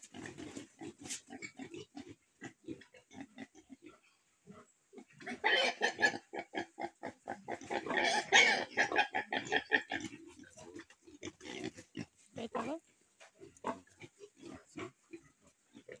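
Piglet squealing while held up by a hind leg for a classical swine fever vaccine injection. The squeals come in rapid bursts and are loudest for about five seconds in the middle, with shorter grunts and squeaks before and after.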